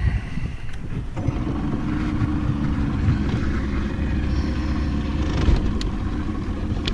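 Bass boat's outboard motor running under way with a steady drone, which settles into an even pitch about a second in.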